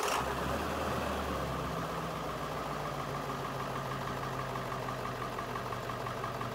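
An engine running steadily at idle, a low even hum with a faint regular ticking.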